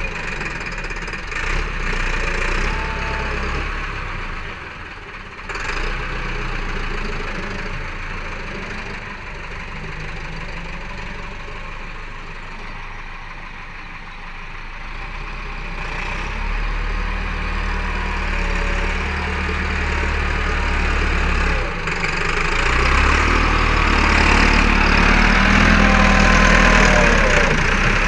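Massey Ferguson 375 tractor's four-cylinder diesel engine running under load as it pulls an implement through loose soil, growing louder in the second half as it comes close.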